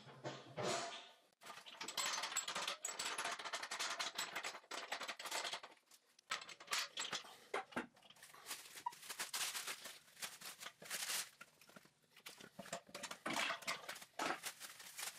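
Plastic bag crinkling, with scattered clicks and knocks, as a clamped handle mold is handled and lifted out of a metal pressure pot. The noise is densest in the first few seconds, then comes in short irregular bursts.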